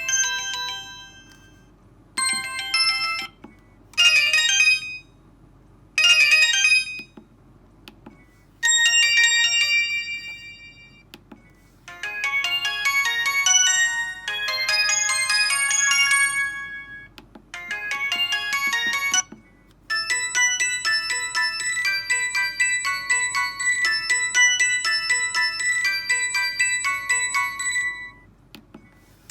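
Samsung SGH-E390 mobile phone's built-in ringtones and alert tones playing one after another: short electronic chime melodies separated by brief pauses, the last and longest lasting about eight seconds.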